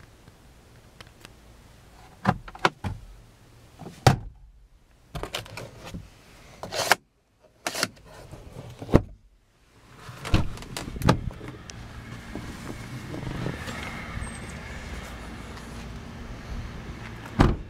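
A string of clicks and knocks from a car's interior fittings being handled, the sun visor among them, then the car door being opened, with a steady hiss from about twelve seconds in and a sharp knock near the end.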